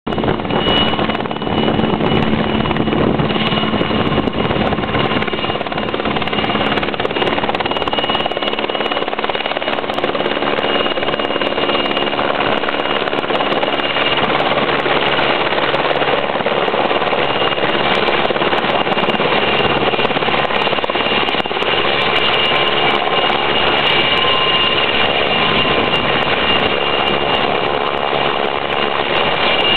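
Firefighting helicopter hovering low while filling its underslung water bucket: steady rotor noise with a high whine.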